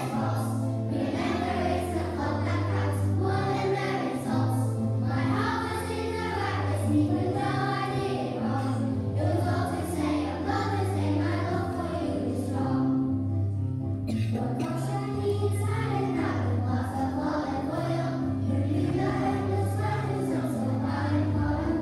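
A group of young children singing a song in unison over an instrumental backing with a steady, repeating bass line, with a short break in the singing partway through.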